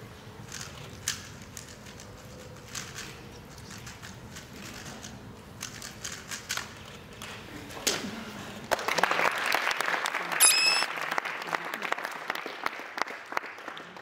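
Rubik's cube turning as a 3x3 speedsolve finishes: scattered sharp clicks and clacks, ending about eight seconds in when the cube is set down and the hands hit the stop timer. Then an audience breaks into loud applause and cheering, with one short shrill cry in it.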